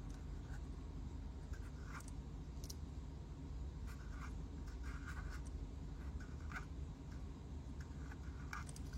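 Faint scattered taps, clicks and light scraping from a Zippo lighter being handled and turned over, over a low steady hum.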